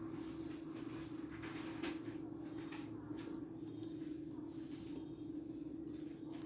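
Faint scattered clicks of small neodymium magnet balls (buckyballs) shifting and snapping against each other as a magnet-ball star is shaped by hand, over a steady hum.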